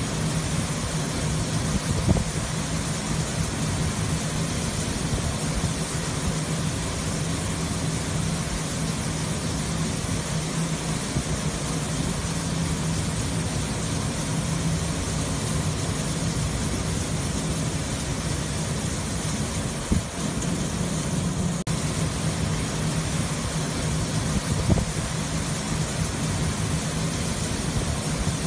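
Steady drone of bulk ship-loading machinery with a low hum, mixed with the rushing hiss of granular fertilizer pouring from the loading spout into the cargo hold. A few short knocks stand out.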